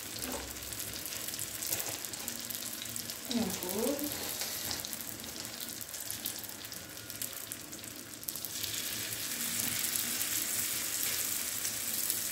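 Brick-pastry cigars shallow-frying in hot oil in a frying pan: a steady sizzle and crackle that grows louder about eight seconds in, as another cigar goes into the oil.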